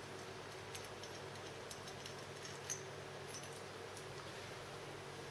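A few faint, sharp clicks over a steady low hum.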